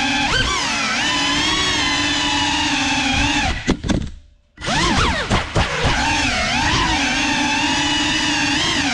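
FPV quadcopter's brushless motors and propellers whining, the pitch rising and falling as the throttle changes. About four seconds in the motors drop almost to silence for about half a second, then spool back up with a few quick blips.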